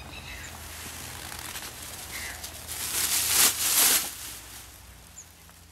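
Rustling noise that swells for about a second and a half in the middle and then fades, over a steady low hum, with a couple of faint high chirps in the first half.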